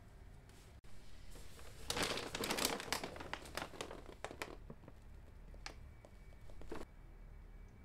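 Large plastic pouch of whey protein powder crinkling as it is handled, with a dense burst of crinkling about two seconds in, scattered crackles after it, and two shorter rustles near the end.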